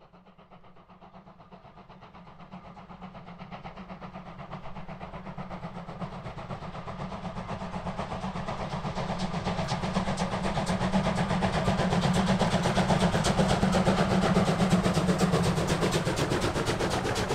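Diesel locomotive engine sound from a Brawa BR 213 (V100) model's sound decoder, growing steadily louder over the first dozen seconds and then holding, with a rapid ticking running through it.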